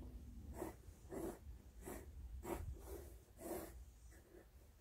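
Pencil drawing on watercolour paper: a series of faint, short scratching strokes, roughly two a second.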